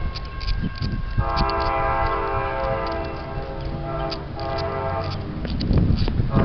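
Train horn sounding a steady multi-note chord, starting about a second in and holding for several seconds over a low rumble.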